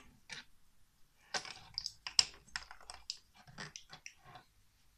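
Loose Lego bricks clicking and clattering as hands rummage through plastic pieces on a table: a run of small, sharp clicks that dies away near the end.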